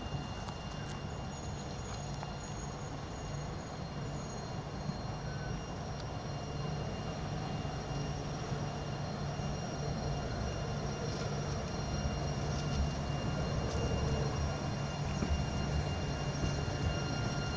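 Electric tram approaching along its tracks and passing close by. It makes a steady low hum with faint, thin high tones above it, growing louder as it nears.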